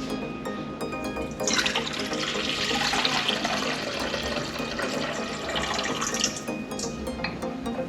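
Liquid pouring steadily for about five seconds, starting about a second and a half in: the yeast, honey and water mixture being poured into the mixing bowl for pizza dough.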